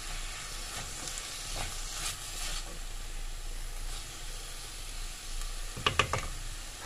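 Diced chicken breast, onion and grated carrot sizzling in a stainless steel frying pan while a spatula stirs and scrapes through them. About six seconds in, the spatula knocks sharply against the pan a couple of times.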